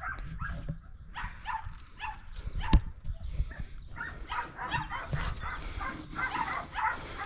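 A dog whimpering and yipping in many short, high calls, with one sharp knock a little under three seconds in.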